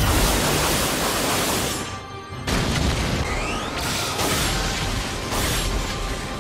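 Anime battle sound effects: a loud, dense rumble of giant falling meteors and shattering rock over background music. It breaks off sharply for a moment about two seconds in, then comes back.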